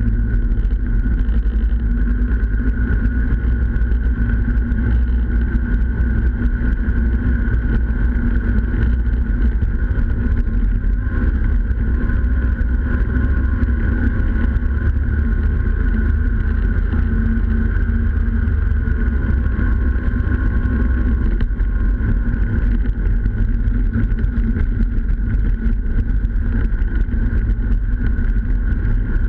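Snowmobile running steadily at trail speed, heard from on board the machine: a continuous heavy low engine and track rumble with a steady higher drone, and no pauses.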